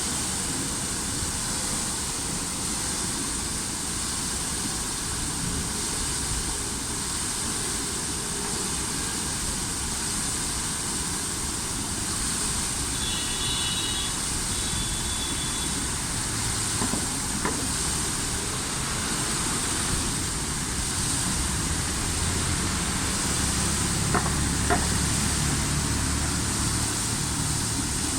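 Fountain water falling and splashing in a steady hiss, with a low traffic rumble that grows louder about three quarters of the way through and a few light clicks.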